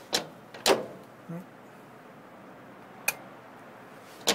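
A few sharp metallic clunks and clicks from the Mosler security file cabinet's combination dial and lock being worked: two clunks close together near the start, the second the loudest, then a single short click about three seconds in and another at the end.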